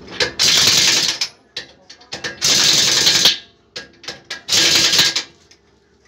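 Pneumatic impact wrench run in three short rattling bursts of under a second each, with small metal clicks between them.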